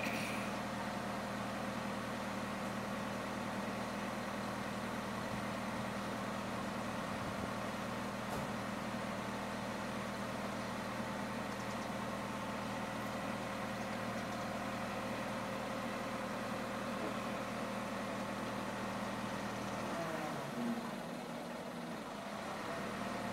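Truck engine running steadily at a constant speed while driving the truck-mounted hydraulic crane. Near the end the deep low part of the engine note drops away and the sound thins out.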